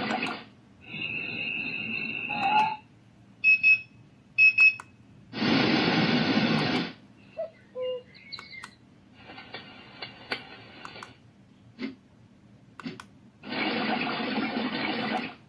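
Built-in alarm sounds of a BatdTech wireless-charging lamp alarm clock being previewed one after another through its speaker. Each is a sample of a second or two: several are rushing, noise-like nature sounds, one has a held tone, and there is a sharp double beep about four seconds in. Button clicks and short pauses fall between the samples.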